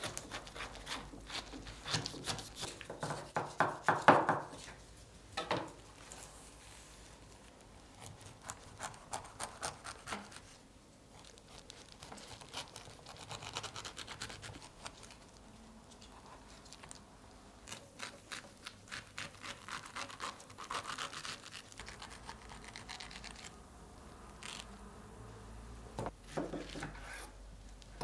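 Kitchen knife cutting and scraping through a fresh pineapple, in bouts of quick slicing and scraping strokes, with a few sharper knocks of the blade on a wooden cutting board near the end.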